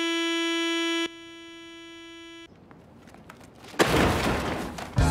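A harsh, steady electronic buzzer tone that drops sharply in volume about a second in and stops about two and a half seconds in. After faint noise, a loud burst of noise comes in near the end and fades.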